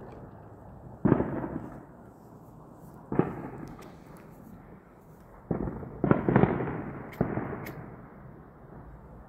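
Fireworks booming in the distance: five loud bangs, each trailing off in a long rumbling echo, two of them close together about six seconds in.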